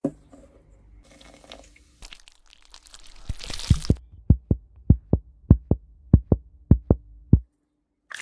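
Heartbeat sound effect: deep thumps in lub-dub pairs, a pair roughly every 0.6 seconds, starting about three seconds in over a low hum and stopping near the end. A rising hiss leads into it.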